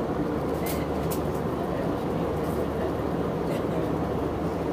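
Steady cabin noise of an Airbus A320 airliner in cruise: an even rumble of airflow and engines with no change in level.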